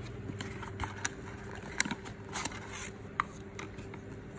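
A few light clicks and taps from handling a wristwatch and its box, over a steady low hum.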